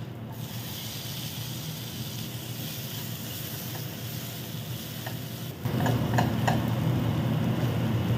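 Tomatoes and onion masala sizzling in hot oil in a nonstick wok while a silicone spatula stirs them. The stirring gets louder from about five and a half seconds in, with a few light taps of the spatula against the pan.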